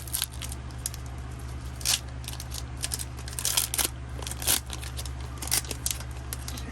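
Foil wrapper of a Pokémon booster pack crinkling and tearing as it is opened, with cards being handled: irregular short crisp crackles and clicks.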